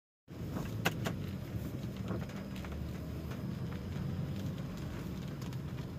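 Car cabin noise while driving on a wet street: a steady low rumble of engine and tyres, with scattered taps of raindrops on the car, two sharp ones about a second in.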